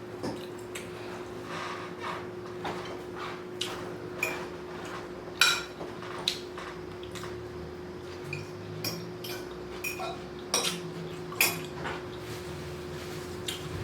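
Cutlery and dishes clinking while someone eats: a dozen or so sharp, irregular clicks and taps, the loudest about five seconds in.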